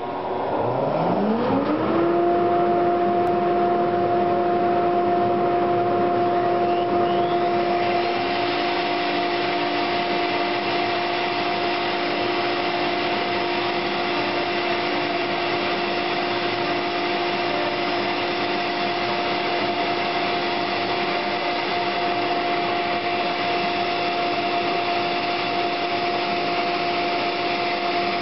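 CNC router's spindle motor spinning up with a rising whine over about two seconds, then running at a steady high-pitched whine. About eight seconds in a harsher rushing hiss joins it and holds: the V-bit carving wood, with dust extraction drawing chips through the dust shoe.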